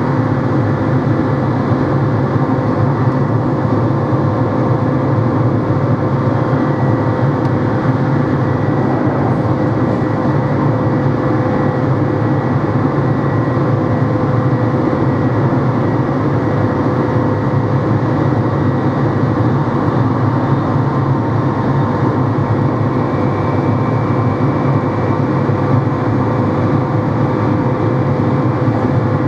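SNCB AM96 electric multiple unit running at steady speed: a constant low rumble with a steady whine over it. A fainter high tone joins about a quarter of the way in.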